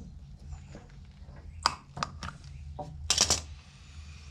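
A few sharp metal clicks and a short scrape as the retaining clip is worked off the ride-on mower's wheel axle, over a steady low hum.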